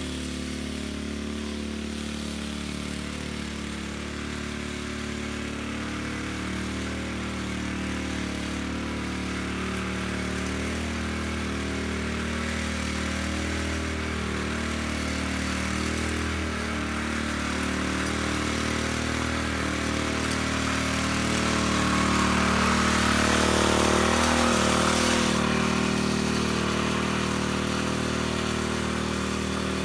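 Small gas engine of a rototiller running steadily as its tines churn dry soil and grass. It grows louder as the tiller comes toward the microphone, and is loudest about three-quarters of the way through.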